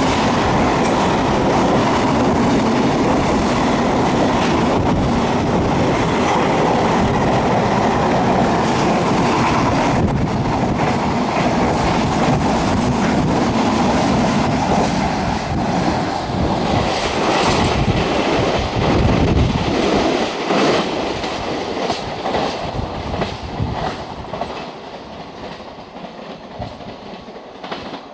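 Container freight train wagons rushing past at speed, a loud steady rumble and rattle of wheels on rail. In the last third the rhythmic clatter of wheels over rail joints stands out, and the sound fades as the end of the train passes and recedes.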